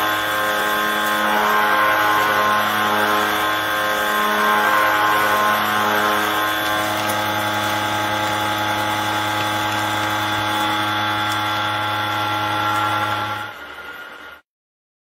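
Disc milling cutter on a CNC milling machine cutting a steel block: a steady machining whine of several held tones over a low hum, fading about thirteen and a half seconds in and stopping a second later.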